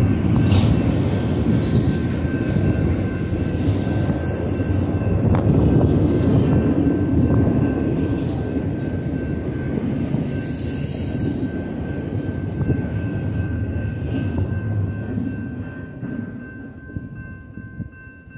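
Double-stack intermodal freight cars rolling by: a steady rumble and clatter of steel wheels on rail, with a brief high wheel squeal about ten seconds in. The rumble fades away over the last few seconds as the end of the train passes.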